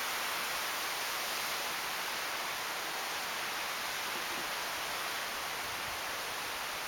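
Storm-force wind blowing through tall trees overhead: a steady, even hiss of moving branches and foliage.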